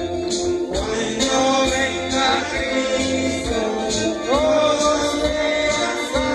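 Electronic keyboard playing a hymn tune with voices singing along over a steady beat.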